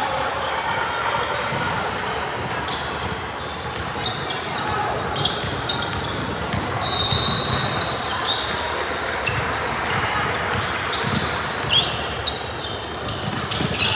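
A basketball bouncing on a gym floor during play, over a background of voices in a large hall.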